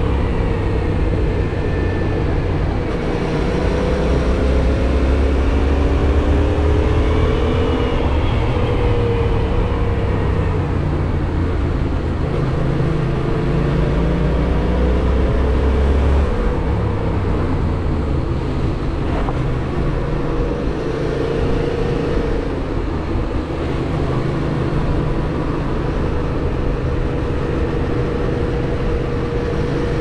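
Yamaha MT-07's parallel-twin engine running at a steady cruise, its pitch rising and falling gently several times with the throttle, under wind noise from riding at speed.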